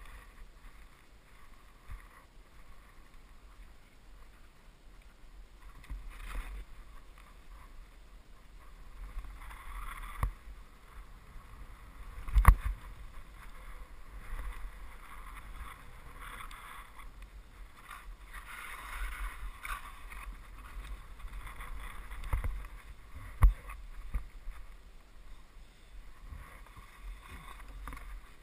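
Skis sliding and turning through snow: a muffled swishing that swells and fades with the turns over a low rumble, broken by a few sharp knocks, the loudest about twelve seconds in and another near twenty-three seconds.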